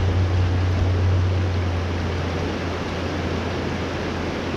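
Small mountain stream rushing over rocks: a steady, even noise of moving water, with a low rumble underneath that weakens near the end.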